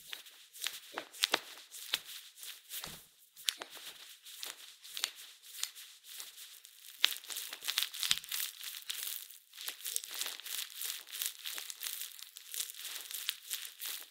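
Sticky bread dough being kneaded by hand on a wooden cutting board: a dense, irregular stream of wet, tacky clicks and tearing sounds. Softened butter is being worked into the dough and has not yet combined with it, so the dough is slick and tears as it is pushed and folded.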